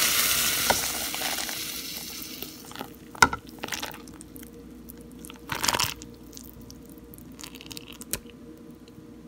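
Hot broth and thick rice noodles poured from the pot into a bowl: a splashing pour that fades over the first couple of seconds. Then a utensil clinks against the bowl twice, and there is a short second splash of broth about halfway through.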